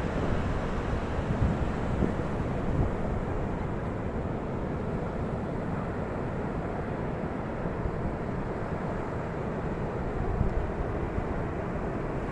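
Steady low rush of ocean surf along a beach, with small swells in level but no single sharp wave crash.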